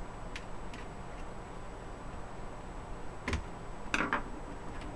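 Plastic retaining tabs of a Compaq CQ62 laptop palm rest clicking loose as it is pried off. There are a couple of faint clicks at first, then a sharp snap about three seconds in and a quick cluster of clicks a moment later.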